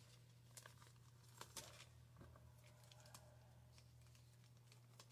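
Near silence with faint, brief crinkles and rustles of a small clear plastic bag being handled and opened, over a low steady hum.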